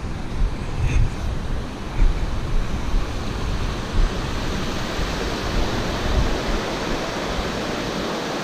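Creek water rushing steadily over a rocky cascade into a pool, a constant hiss. Wind buffets the microphone with low gusts for the first six seconds or so.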